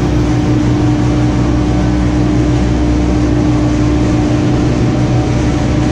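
Gondola lift station machinery running with a steady, loud mechanical hum and a constant low drone.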